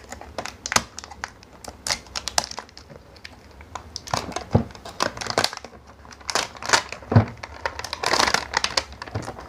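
Clear plastic shrink wrap being peeled and pulled off a paperboard box, crinkling and crackling in irregular bursts that are densest about four and eight seconds in.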